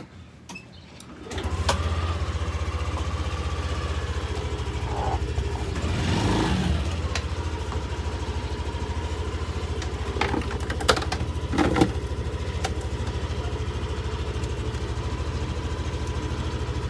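Yamaha Aerox 155 scooter's single-cylinder four-stroke engine starting about a second in, then idling steadily with a faint steady whine, swelling briefly about six seconds in. A few sharp knocks come near the middle.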